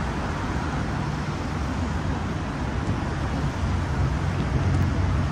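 Steady vehicle and traffic noise with a continuous low rumble, growing slightly louder near the end.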